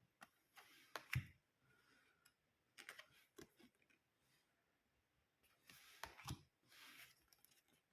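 Faint clicks and short rustles of large tarot cards being handled, in three small clusters about a second, three seconds and six seconds in.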